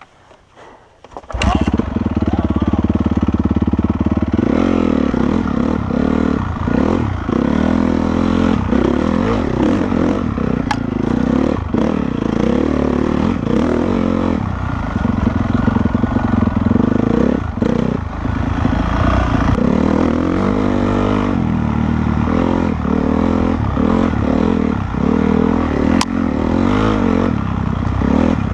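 Honda CRF450R's single-cylinder four-stroke engine, which starts suddenly about a second in and then runs under load while being ridden, the throttle opening and closing with repeated short dips.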